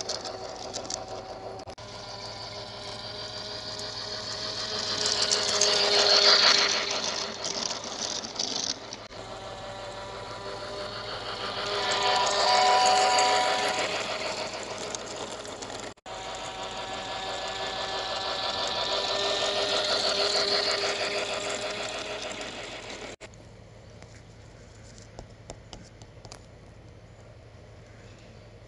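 Garden-scale electric model train passing close on its track: a whirring motor with fast wheel clatter that swells and fades as it goes by, three passes in a row. The last few seconds are much quieter.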